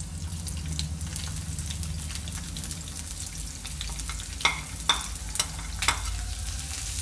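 Sliced onions sizzling in hot oil in a kadai as they are tipped in from a plate. There is a steady hiss, with a few sharp clicks in the second half.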